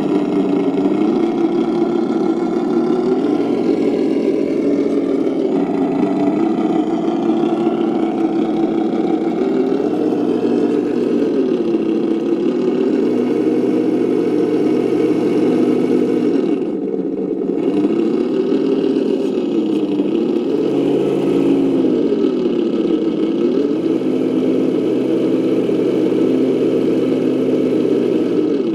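Reely sound module in a 1:10 Traxxas TRX-4 Land Rover Defender crawler playing a simulated engine sound through its small speaker, the revs rising and falling again and again with the throttle.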